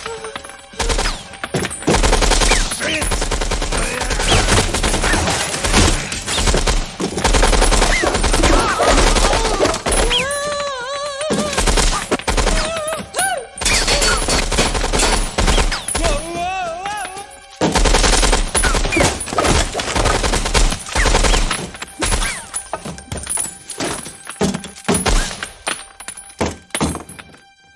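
Film soundtrack of sustained automatic gunfire from a MAC-10 submachine gun, long rapid bursts with bullets hitting and splintering wood. A woman screams twice, about ten and sixteen seconds in, and the shots thin out near the end.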